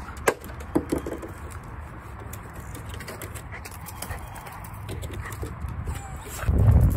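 A dog's claws and paws tapping on a wooden deck as it walks on the leash, a few sharp clicks near the start over low outdoor background noise. A loud low rumble comes in near the end.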